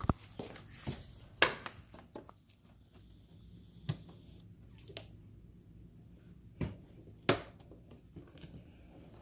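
Hand-handling sounds of a stretch-fabric front-bumper mask being pulled taut and hooked onto the car's mounting buttons: about half a dozen sharp clicks and knocks, spaced a second or more apart, the loudest about a second and a half in and near the end.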